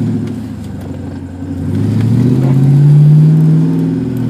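1996 Ford Mustang SVT Cobra's 4.6-litre V8 heard from inside the cabin while driving, the engine note dipping, then rising under throttle to its loudest about three seconds in before easing off.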